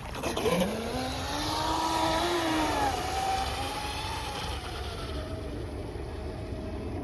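Blackjack electric RC boat's motor whining at speed on a 3S battery. The whine rises in pitch over the first two seconds, then drops and fades as the boat runs away, over a steady low rumble.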